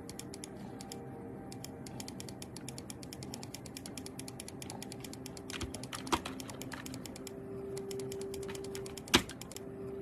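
Computer keyboard keys clacking in a rapid, continuous patter, with two louder knocks about six and nine seconds in.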